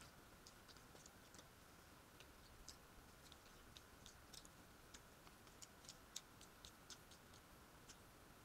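Near silence with faint, irregular soft clicks of someone eating by hand: fingers picking at food in a foil tray and quiet chewing, the clicks coming more often in the middle.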